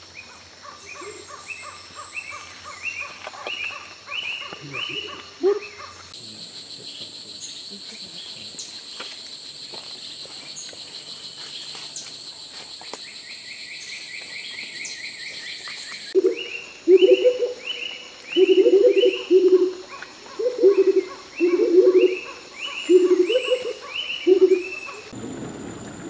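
Motmots calling: a run of loud low hoots, often doubled, through the second half. Under them are repeated rising chirps of other birds and, for several seconds in the middle, a steady high insect buzz.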